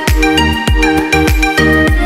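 Electronic background music with a steady kick-drum beat, about three beats every two seconds, under sustained synth chords.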